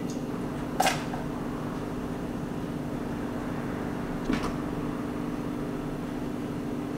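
Steady low hum in a small kitchen, with two short sharp knocks of kitchen things being handled: one about a second in, and another about four seconds in as a spoon works in a plastic tub.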